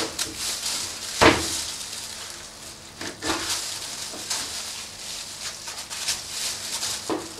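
Knife cutting and scraping at a pork hind shank on a stainless steel table, freeing the fibula from the meat. Irregular soft scrapes and clicks of blade, bone and meat on steel, with one sharp knock about a second in.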